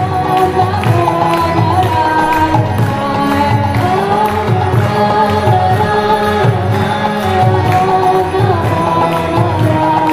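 Live kirtan: a harmonium holds a steady drone under a gliding sung devotional chant line, with a double-headed hand drum keeping an even beat of about two strokes a second.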